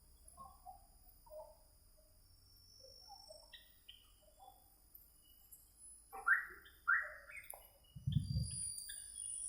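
Small caged parrots chirping with many short soft calls, two louder calls past the middle, and a brief low bump near the end.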